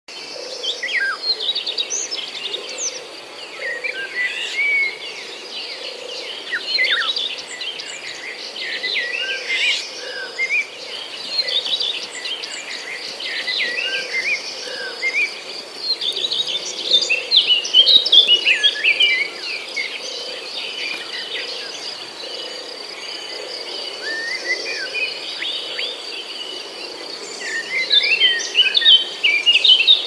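Small songbirds chirping and calling in quick, overlapping notes, busiest about halfway through and near the end. A steady, high insect trill runs underneath.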